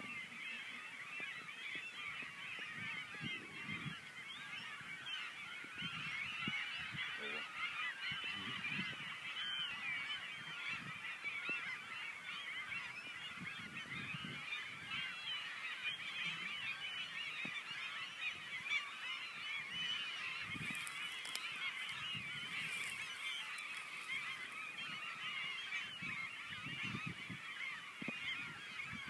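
A large flock of geese honking, many calls overlapping in one continuous chorus.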